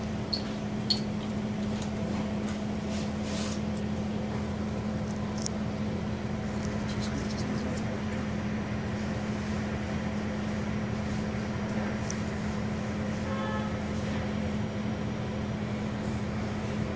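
Steady hum inside a double-decker city bus standing still with its engine idling, with a few faint clicks.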